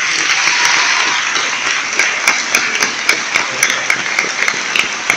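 Audience applauding as a choir's carol ends: a dense wash of clapping, with one nearby pair of hands standing out in a steady beat of about four claps a second from about two seconds in.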